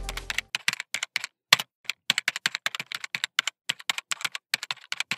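Fine-tip pen drawing small circles on sketchbook paper: quick, irregular ticks and scratches of the pen tip on the page, several a second. Background music cuts off about half a second in.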